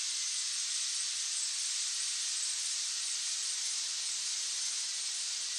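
Steady, even hiss with a faint thin whine held underneath it.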